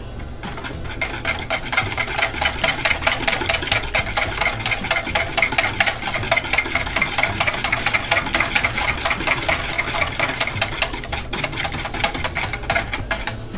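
Wire whisk beating raw soap batter in a bowl by hand: a fast, steady run of clicking and scraping strokes against the bowl, mixing in fragrance oil as the batter thickens.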